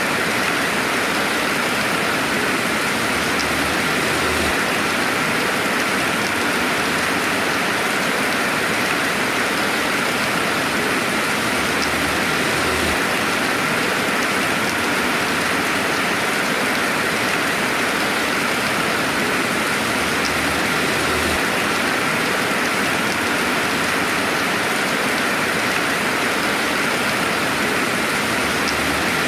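Steady rainfall, an even, unbroken hiss of rain without thunder.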